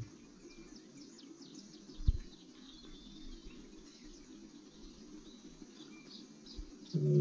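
Faint high bird chirps and insect calls over a quiet background in a pause between a black-maned lion's roars, with one short low thump about two seconds in. Just before the end the lion starts another loud, deep roar.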